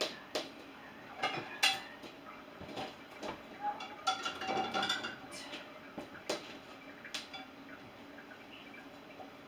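Dishes and cutlery clinking and knocking as they are loaded into a dishwasher rack, in a quick irregular series of clatters, some ringing briefly. The clatter dies away about three quarters of the way through.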